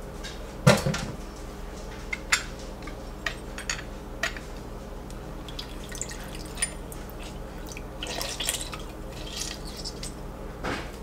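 A plastic hand-press lemon squeezer worked over a cast-iron Dutch oven: a sharp knock about a second in, then scattered light clicks and lemon juice dripping into the broth.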